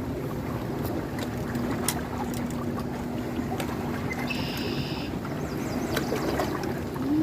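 River water flowing with a steady rushing sound. A faint low hum runs for a few seconds, and a brief high chirp comes about four seconds in.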